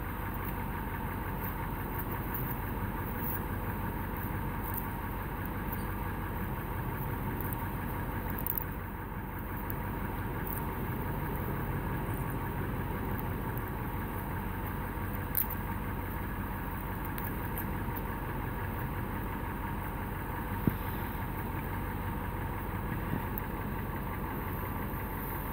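A vehicle engine idling steadily, with a couple of brief clicks about 15 and 21 seconds in.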